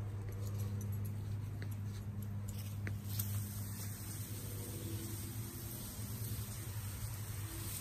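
A steady low hum with a few faint clicks, and a light hiss that comes up about three seconds in.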